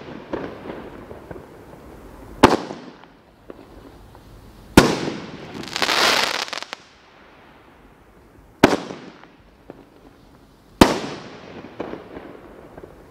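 World Class Fireworks 'Loud & Proud' aerial cake firing: four loud shell bursts a few seconds apart, each trailing off with echo and crackle. Shortly after the second burst comes about a second of dense crackling from a field of small breaks.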